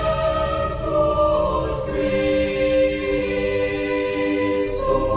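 A choir singing long sustained chords as a film score, the chord changing a couple of times.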